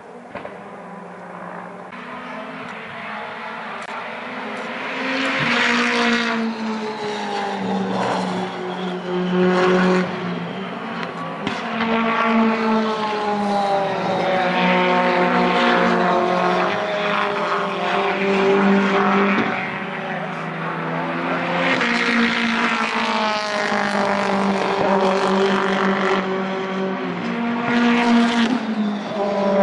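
British Touring Car Championship race cars' engines on track, rising and falling in pitch as they accelerate, change gear and pass. The sound builds over the first six seconds and stays loud, with brief dips.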